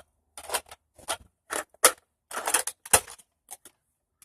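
Plastic Nerf gear being handled: a string of short, irregular clicks and clatters, about eight over a few seconds.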